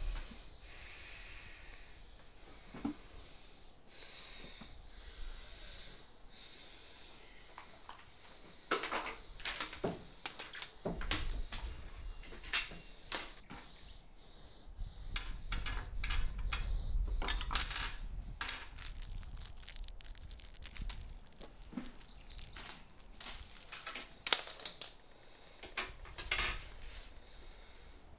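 Scattered clicks, taps and rustles of small objects being handled on a glass tabletop: a syringe, small glass ampoules and wrappers. They are irregular, some louder than others, with a low rumble underneath through the middle.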